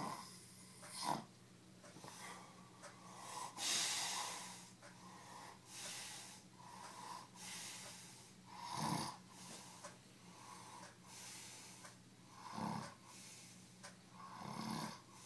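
A person passed out drunk after heavy vodka drinking, snoring in deep sleep. Loud, irregular snoring breaths come every few seconds.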